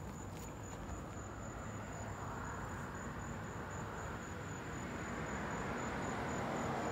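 Insects trilling in the grass: a thin, steady, high trill. Partway through, the road noise of a passing vehicle comes up underneath and grows louder.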